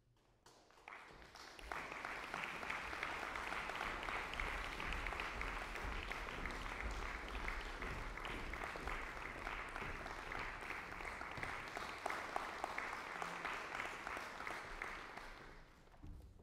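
Audience applauding, starting about a second in, holding steady and dying away near the end.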